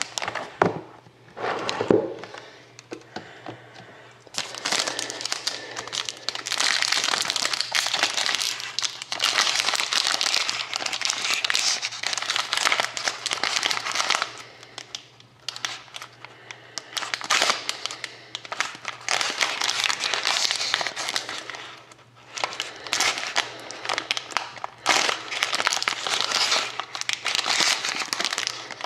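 Silver foil wrapper of a sealed trading-card pack crinkling and crackling in long stretches as hands handle it and work at getting it open. A couple of sharp knocks in the first two seconds.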